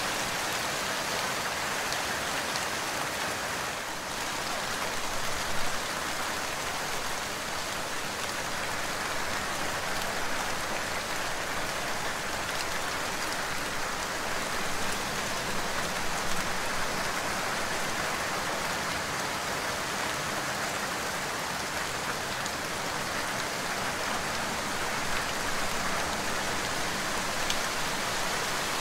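Steady rain falling, an even hiss of drops, with a few slightly louder spatters.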